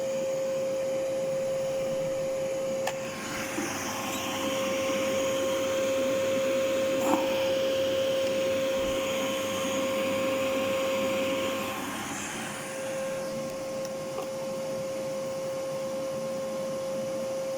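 Hoover vacuum cleaner running, with a strong steady whine around 530 Hz over its motor and air noise. From about three seconds in, a louder airy hiss joins and lasts until about twelve seconds, then eases back.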